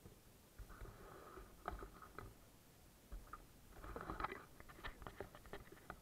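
Faint handling noise on a small action camera: rustling and scraping with a scatter of small knocks as the camera is moved, busiest from about four seconds in.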